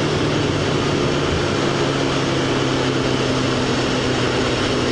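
Suzuki GSX-R motorcycle engine running at a steady cruise, heard from the pillion seat under heavy wind rush; its note drops slightly about a second in, then holds.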